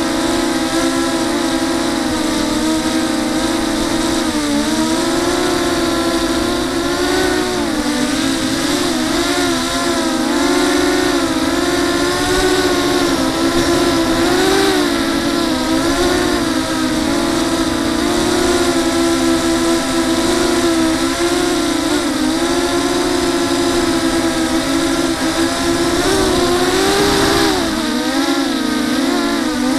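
Brushless motors and propellers of a TenTech Thug 250 FPV quadcopter, heard from its onboard camera, whining steadily with the pitch rising and falling as the throttle changes. There is a sharper rise and fall near the end.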